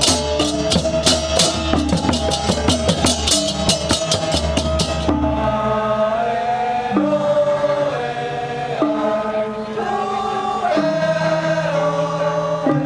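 Music: fast, dense percussion with rapid cymbal-like strikes, which stops about five seconds in and gives way to a melody of held notes stepping up and down in pitch.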